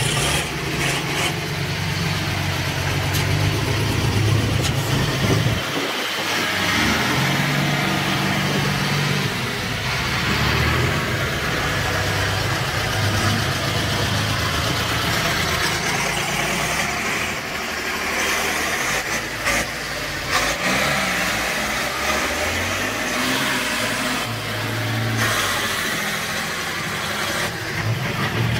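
Ford 6600 tractor's three-cylinder diesel engine running under load as it pushes soil with its front blade, the engine note rising and falling as the throttle and load change.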